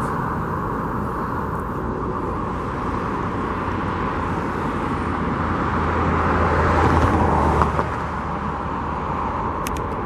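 Steady road traffic going by, with one heavier vehicle's engine swelling as it passes about six to seven seconds in, then fading.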